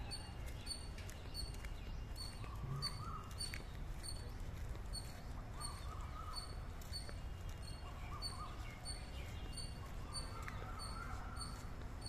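Outdoor ambience: a short, high chirp repeats evenly about every two-thirds of a second. Faint wavering bird calls come and go over a steady low rumble.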